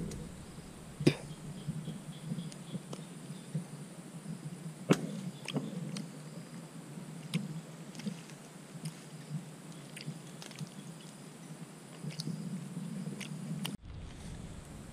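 Faint outdoor ambience: a steady low hum and a faint steady high tone, with scattered sharp clicks and crackles. The ambience drops out abruptly near the end.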